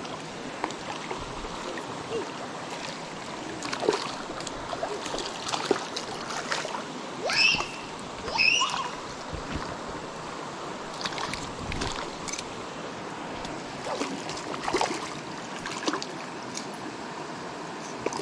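Shallow stream running over stones, with scattered splashes as a small hooked fish is played in and landed. Two short high chirps sound about seven and eight and a half seconds in.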